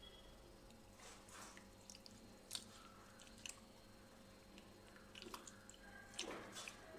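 Faint, soft squishing and dripping of a hand squeezing soaked tamarind in water, coming in a few short, scattered squelches.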